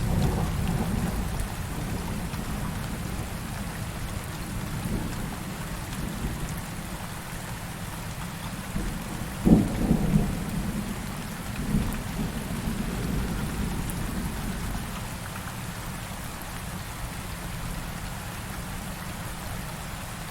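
Heavy rain falling steadily with low rolling thunder that slowly fades. About halfway through comes one sharp thunderclap, followed by a couple of smaller rumbles.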